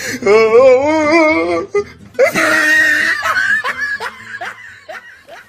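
A voice laughing loudly: a long, wavering laugh, then a high shrieking laugh about two seconds in, trailing off into a run of short falling laughs that fade out.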